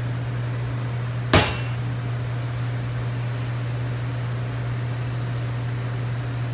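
Steady low machine hum, with one sharp knock about a second and a half in.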